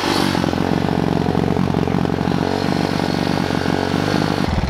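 Pit bike's small four-stroke engine running steadily on a stand. The engine smokes badly and is called shot, in need of a new top end.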